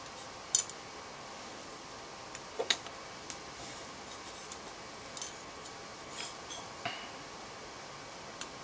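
Scattered light clicks and taps of small metal parts being handled and fitted into a Version 3 airsoft gearbox shell half as its bushings are put in. The clicks come singly, several seconds apart, and the sharpest falls a little under three seconds in.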